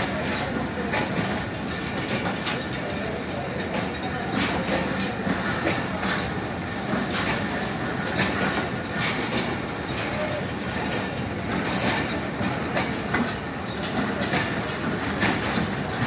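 Pakistan Railways passenger coaches rolling past at a steady speed: a continuous rumble with wheels clattering irregularly over rail joints. A couple of brief high-pitched wheel squeals come about twelve and thirteen seconds in.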